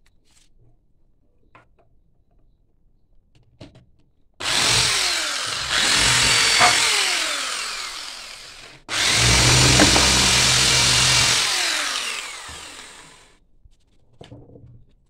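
Hand-held electric power tool, likely a drill, run twice in quick succession on a piece of coconut shell. Each run starts abruptly and then tails off over a few seconds, with a falling whine. There are a few light handling clicks before and after.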